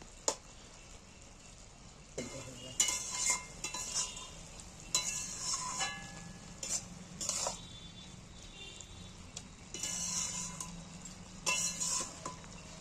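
Spatula stirring and scraping a radish-greens curry in an aluminium kadai, in irregular strokes with short metallic rings off the pan, over a light sizzle from the cooking curry. The stirring starts about two seconds in.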